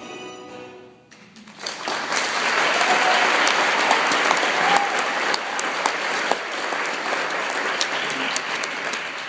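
The last notes of an orchestral show tune die away in the first second, then an audience bursts into applause about a second and a half in and keeps clapping loudly.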